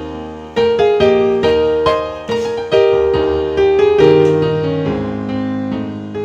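Background piano music: a slow melody of single struck notes, each fading away before the next.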